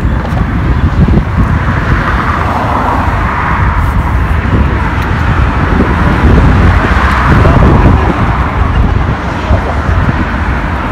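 Road traffic running past steadily, its hiss swelling a few times as vehicles go by, over a heavy low rumble of wind on the microphone.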